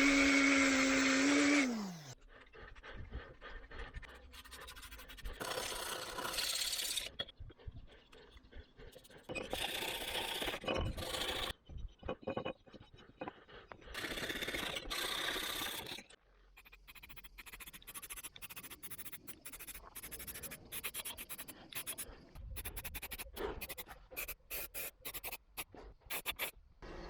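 A power tool whines down to a stop about two seconds in. Then come separate bursts of rough rasping or scraping on metal, each a second or two long, and after the middle a run of scattered clicks and taps: hand metalwork on the car's body panels.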